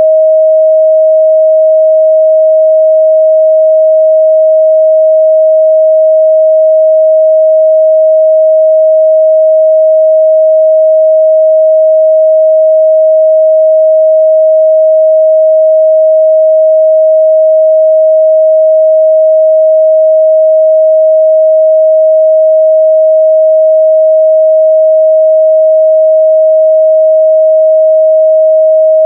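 A steady, loud 631 Hz pure sine-wave test tone, a single unchanging pitch in the midrange.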